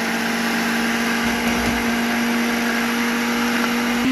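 Countertop electric blender running steadily, its motor humming at a constant pitch as it chops bread pieces into crumbs; the pitch steps up slightly near the end.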